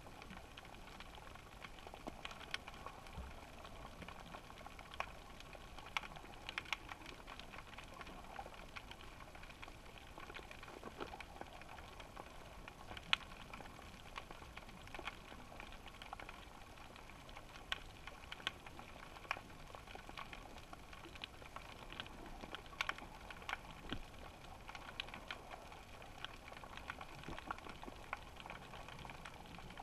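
Faint underwater crackling: irregular small clicks and pops over a low hiss, with a few sharper clicks standing out, heard through a GoPro's waterproof housing.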